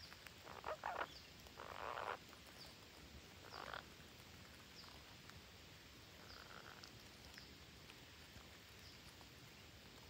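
Faint animal calls: a few short raspy calls in the first four seconds, the loudest around one and two seconds in, over a thin high chirp repeating about once a second.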